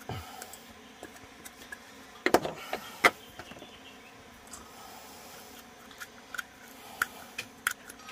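Scattered light clicks and knocks of small cups being tipped and tapped over a stainless steel mixing bowl as ingredients go in. Two sharper knocks come about two and three seconds in.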